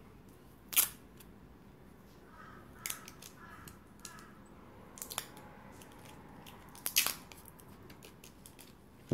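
Heavy-duty duct tape being worked by hand: four short, sharp crackling rips about two seconds apart, the first and last the loudest.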